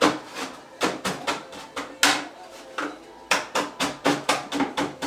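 Wooden boards knocking and clacking as the hinged pine tabletop of a knock-down kitchen bar is handled and fitted on its wooden frame: a string of sharp knocks, coming quicker in the second half.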